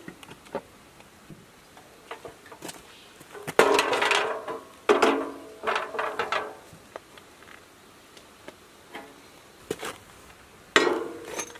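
Sheet-steel bracket being handled and fitted against a tractor's metal frame: light metallic clicks and taps, with three louder clanks that ring briefly, one a few seconds in, another about a second later, and one near the end.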